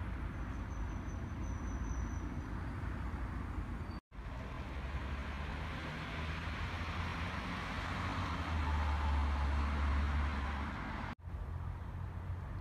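Outdoor background ambience: a steady low rumble with hiss, like distant traffic, that drops out for an instant twice, about four seconds in and near the end.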